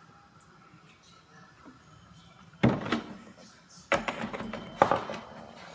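Three sudden knocks on a kitchen countertop about a second apart, the first the loudest, as a plastic milk jug is set down and a glass of milk and ice is handled.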